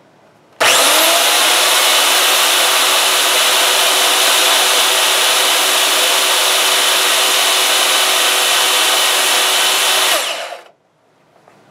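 Craftsman miter saw's brushed electric motor switched on, spinning up almost at once and running at a steady, even speed for about nine seconds, then switched off and winding down with falling pitch. This is a test run after the armature's copper commutator was machined and the saw reassembled, and it runs smoothly.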